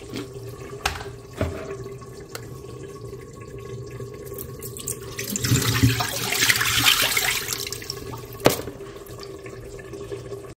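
Cherries being rinsed in a plastic salad spinner: water splashes and pours out of the bowl for a couple of seconds midway, with a few sharp knocks of the plastic basket and bowl.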